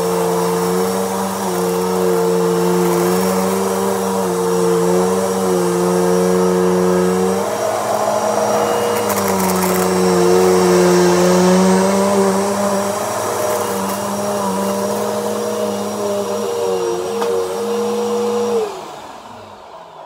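Dirt Devil upright vacuum cleaner running, with a steady motor hum whose pitch shifts as it is pushed over shredded paper on carpet. Near the end it is switched off and its motor winds down with a falling pitch.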